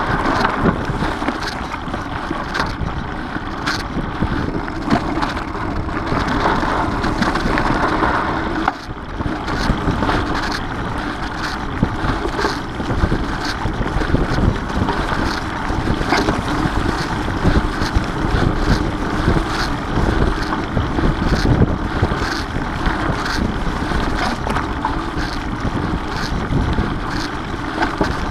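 Mountain bike ridden over a leaf-covered dirt singletrack: wind buffeting the GoPro microphone and steady tyre rumble, with frequent small clicks and knocks from the bike over the bumps.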